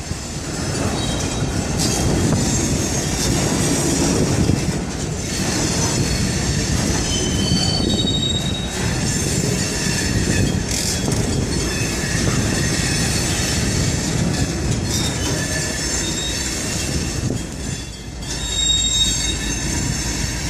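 Freight cars rolling slowly through a rail yard: a steady low rumble from the wheels and cars, with high-pitched steel wheel squeal coming and going.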